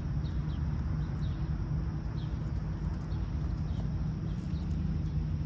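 Outdoor ambience: a steady low rumble, with a small bird giving faint, short, high falling chirps every second or so.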